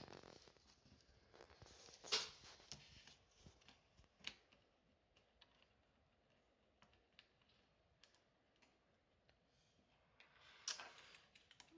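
Faint, scattered clicks and taps of small parts and tools being handled on an opened Chromebook laptop. Sharper clicks come about two seconds in, about four seconds in and near the end.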